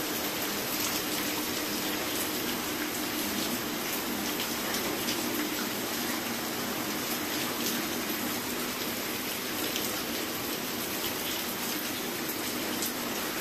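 Heavy rain falling steadily, with water streaming off a roof edge and drops spattering.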